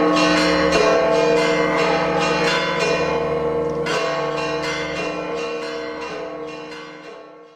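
Church bells ringing a joyous peal, many quick strikes overlapping over their ringing tones, fading away over the last few seconds.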